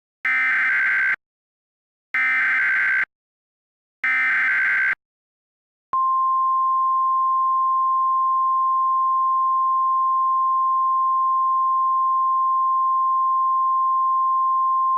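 Emergency Alert System header: three short, buzzy SAME data bursts about two seconds apart, then a single steady attention tone that starts about six seconds in and holds.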